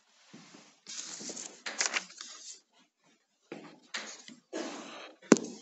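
Irregular rustling and clattering handling noises in short bursts, with one sharp click about five seconds in.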